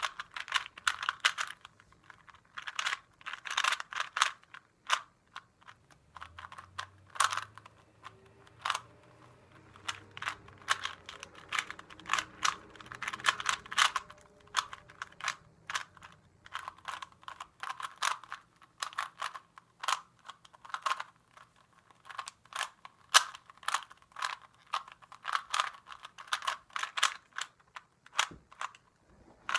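Plastic Rubik's Cube being turned by hand, its layers clicking and clacking in quick flurries of turns separated by short pauses.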